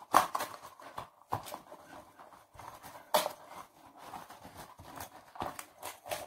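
Banana leaves rustling and crinkling as a drinking glass is rolled and pressed over them to flatten peanut caramel candy beneath, with about five sharp knocks scattered through.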